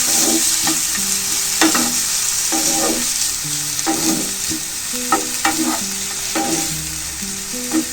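Carrot and capsicum strips sizzling in a frying pan with no added oil as they are stirred, the utensil scraping against the pan every half second to a second.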